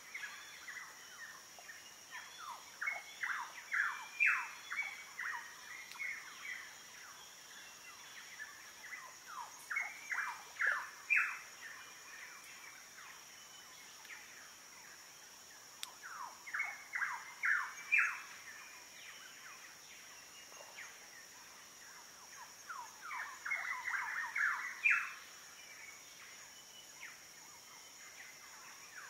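A bird singing in four bouts of quick, falling notes, each bout a few seconds long and several seconds apart, over a steady high-pitched insect drone.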